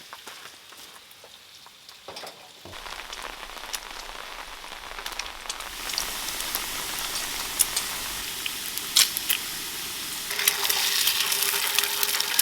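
Food sizzling in a frying pan, with scattered crackles and pops. The sizzle grows louder about ten seconds in.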